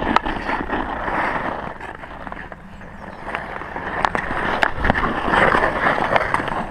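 Ice skate blades scraping and carving across outdoor ice, louder in a stretch a little past the middle. A few sharp clacks of hockey sticks striking the ice or the ball.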